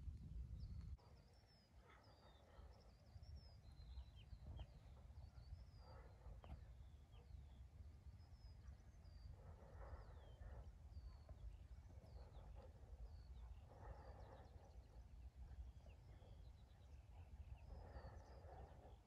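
Faint chirping of small birds, many short high calls, over a low steady rumble. Softer hazy sounds come and go every couple of seconds.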